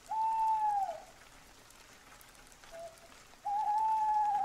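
Owl hooting over steady light rain: two long, clear hoots, the second longer, each dropping in pitch at its end, with a short faint hoot between them.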